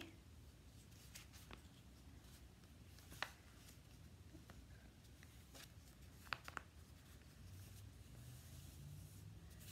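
Faint rustling of construction paper being folded and creased flat by hand, with a few soft clicks: one about three seconds in and two close together a little past the middle.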